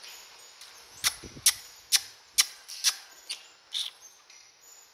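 Baby macaque sucking milk from a feeding bottle: a regular run of sharp wet clicks, about two a second, seven or so in a row, starting about a second in.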